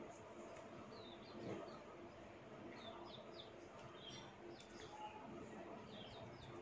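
Faint chirping of small birds: short runs of three or four quick high notes, repeated several times over low background noise.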